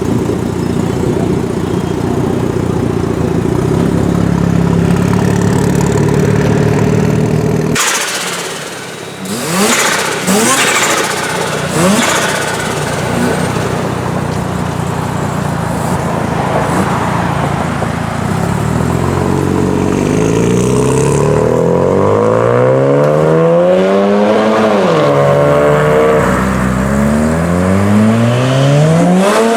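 Car engines: a steady idling rumble, then after an abrupt change a car accelerating hard, its engine pitch climbing, dropping once at a gear change and climbing again near the end.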